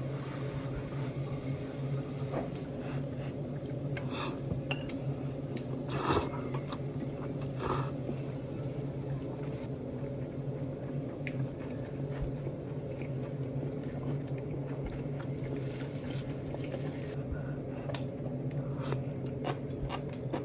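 Cutlery clinking against dishes at a meal: a few sharp clicks and knocks, the clearest about four, six and eight seconds in. A steady low hum runs underneath.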